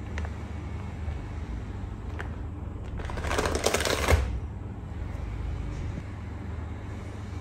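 A soft plastic packet of pet wipes crinkling and rustling for about a second as it is pushed into a fabric crossbody bag, ending in a short thump.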